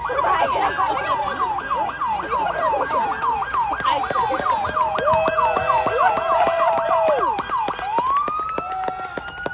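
Emergency vehicle siren in yelp mode, rapid falling sweeps about four a second, switching near the end to a slow rising wail. A second, steady tone sounds alongside it for a couple of seconds in the middle.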